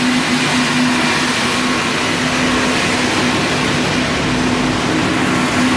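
Steady production-line machinery noise with industrial vacuum hoses drawing up material: an even hiss under a steady low hum.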